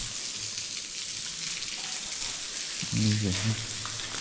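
Steady hiss of a stream of water spraying over dogs to cool them down in the heat.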